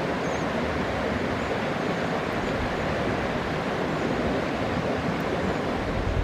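Steady rushing noise, even from low to high pitch, with no engine note or separate sounds in it.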